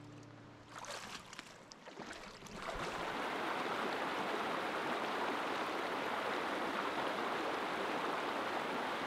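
Shallow mountain stream rushing steadily over rocks in a riffle, coming in suddenly about two and a half seconds in. Before it, the tail of a strummed acoustic guitar chord fades out, with a few faint clicks.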